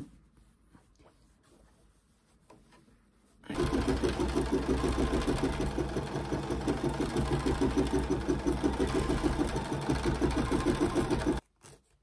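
Bernina 790 Plus embroidery machine starts about three and a half seconds in and stitches at a fast, even rhythm for about eight seconds, then stops abruptly. This is the tack-down stitching that fixes the applique fabric over its placement line before the excess is trimmed.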